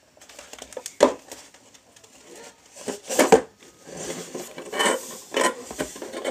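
A small handmade tent being handled and adjusted: irregular rustling with light taps and clatters, the loudest knocks about a second in and around the middle.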